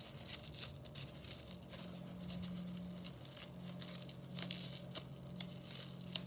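Packaging being handled and opened by hand: faint rustling, crinkling and small taps, over a low steady hum.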